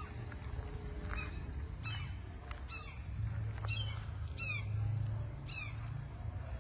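A bird calling outdoors: a series of short, high calls, each sliding downward in pitch, repeated about once a second, over a low rumble that swells midway.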